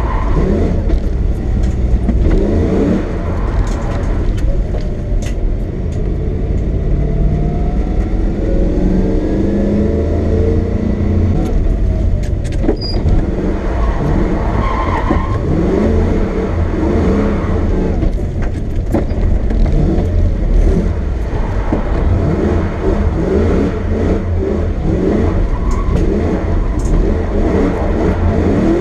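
Lexus SC400's 1UZ-FE V8 engine revving up and down again and again while the car is drifted on a wet road.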